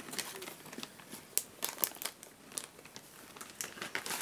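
Close-up chewing of a crisp, buttery melon pan mini cookie: irregular dry crunching and crackling clicks with no steady rhythm.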